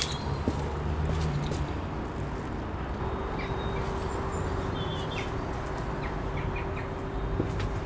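Outdoor background noise with a steady low hum and a few short, faint bird chirps; a steady drone comes in about three seconds in.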